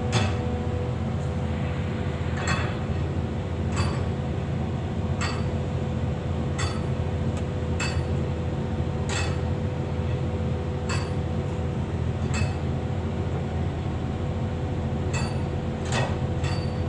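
Long steel bar striking metal on a hydraulic breaker attachment, a sharp ringing clink roughly every second and a half, a dozen or so strikes: hammering at the breaker to change its chisel. Under it, an excavator engine idles with a steady hum.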